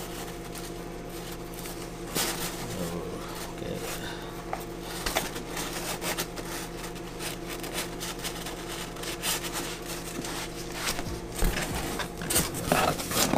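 Scattered rustling and small clicks as shipping packaging and a snake bag are handled and opened, over a steady low hum. The handling grows louder near the end.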